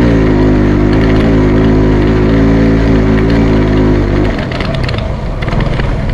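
Motorcycle engine running at a steady pace while riding, with a brief dip in the engine note right at the start. About four seconds in the engine note falls away, leaving a steady rushing noise.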